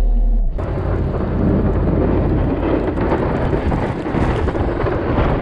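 A vehicle engine hum that cuts off about half a second in, giving way to loud, steady blizzard wind rushing and buffeting across the microphone.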